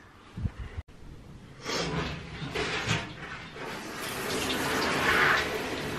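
Water spraying from a handheld shower head onto a potted houseplant's leaves in a bathtub, a steady spray that starts about two seconds in and grows louder.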